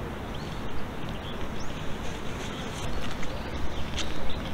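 Small birds chirping, many short high rising and falling notes coming thicker in the second half, over a steady low outdoor rumble.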